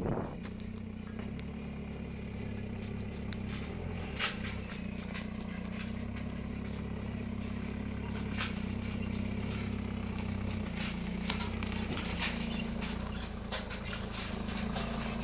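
An engine running steadily, a low even hum, with scattered light clicks and taps over it.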